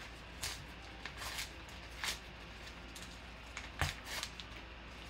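A yellow paper envelope being torn open by hand: a handful of short ripping and crinkling sounds, the loudest about four seconds in.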